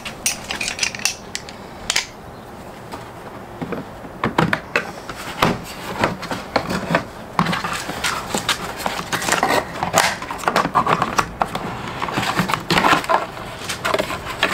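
Plastic clicking, knocking and creaking as the cover of a Fiat Ducato's exterior mirror housing is levered off its clips. A few clicks come at first, then a dense run of small clicks and knocks from about four seconds in.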